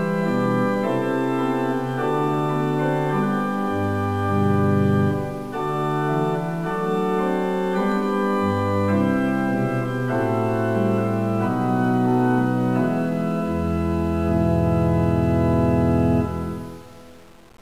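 Slow organ music: sustained chords over a bass line that changes every second or two, fading out near the end.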